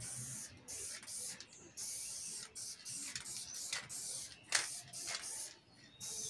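Aerosol spray paint can hissing in short, repeated bursts as paint is laid on in quick strokes, with a sharp click about four and a half seconds in.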